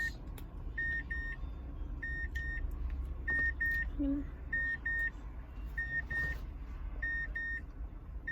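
A car's warning chime beeping in pairs, a pair about every one and a quarter seconds, over a steady low rumble of the car's engine.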